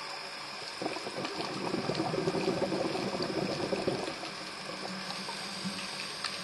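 A scuba diver's exhaled bubbles, heard underwater: a bubbling rush starts about a second in and lasts about three seconds, over a steady underwater hiss.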